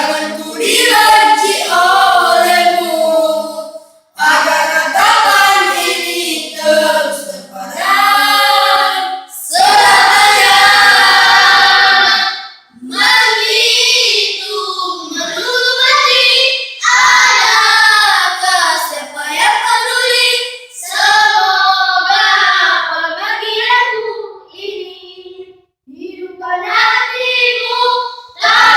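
A group of voices singing without instruments, in sung phrases a few seconds long separated by short breaths.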